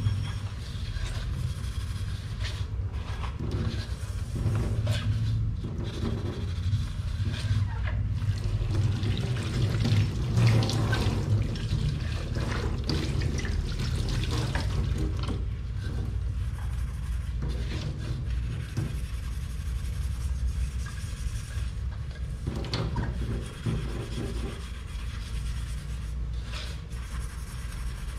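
Water running from a kitchen tap into the sink while dishes are washed: a steady rush of water, with now and then a brief knock of dishware.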